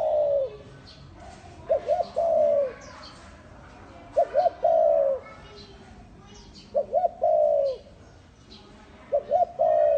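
Spotted dove cooing a repeated call about every two and a half seconds: two short coos, then a longer falling coo. Faint chirps of small birds come in between the calls.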